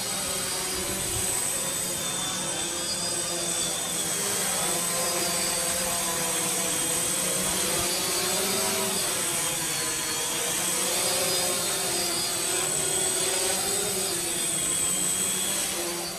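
Multicopter drone's propellers buzzing steadily in flight, several tones wavering slightly up and down in pitch as the motors adjust, with a constant high whine above them.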